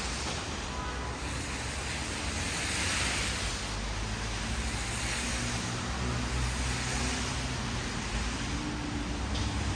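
City street traffic noise on a wet road: a steady low rumble with a broad hiss, which swells about three seconds in.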